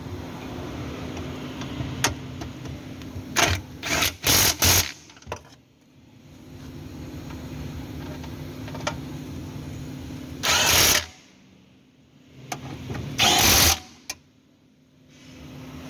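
A steady mechanical hum from a running motor. It fades out and comes back twice and is broken by several loud, short bursts of noise.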